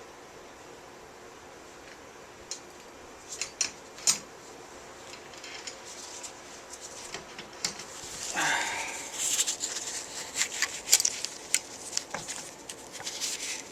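Small metal hardware clicking and rattling in irregular bursts while a garden cart wheel is fitted onto its axle with nuts and a safety pin, with one brief squeak about eight seconds in.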